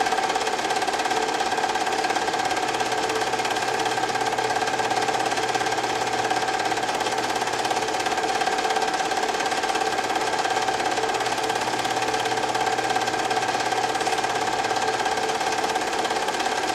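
Film projector running steadily: an unbroken mechanical whirr and fast rattle with a constant hum.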